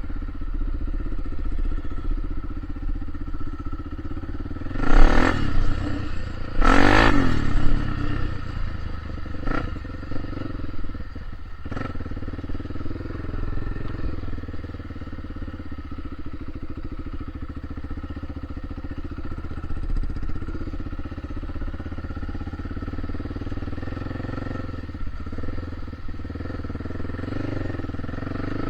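A vehicle engine runs steadily, with two short, loud surges about five and seven seconds in.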